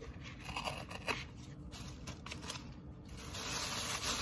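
Cardboard corn starch box being handled, its torn top flap rubbed and scraped. There are a few sharp clicks in the first half, then a longer rustling scrape near the end.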